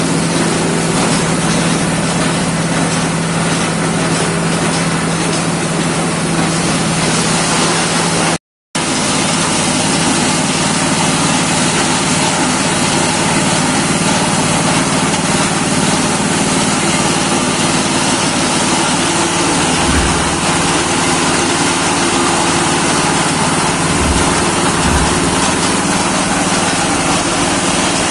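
Pellet crumbler machine for chicken feed running steadily, a continuous mechanical drone. The sound cuts out completely for a moment about eight seconds in.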